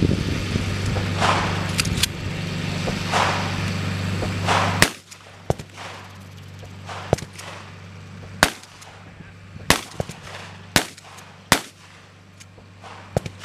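A string of single gunshots from a long gun, about eight sharp cracks fired one at a time at an uneven pace of roughly one a second, the first the loudest. A steady low hum runs underneath until the first shot, then stops.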